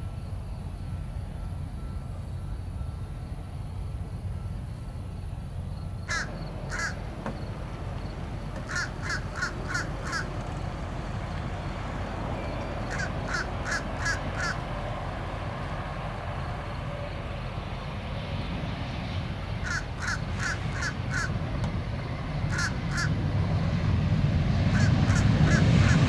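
A crow cawing in short runs of two to five harsh calls, repeated several times, over a steady low rumble. Near the end a jet engine grows steadily louder.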